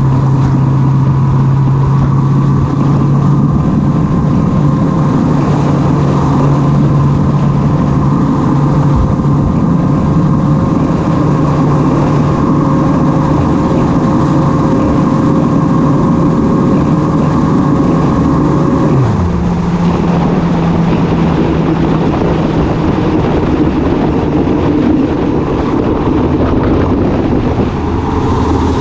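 Motorcycle engine running at a steady cruising speed, with wind rushing over the microphone. About two-thirds of the way through, the engine note drops as the bike slows, then holds at a lower pitch.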